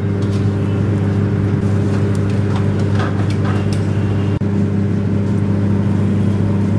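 Steady low mechanical hum of commercial kitchen machinery, with a brief click about four and a half seconds in.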